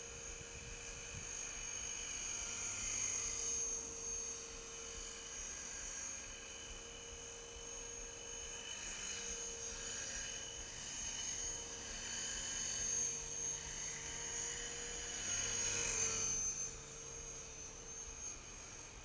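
Gaui X3 electric RC helicopter flying, its motor giving a steady high whine over the rotor hum. The sound swells about sixteen seconds in, then drops off.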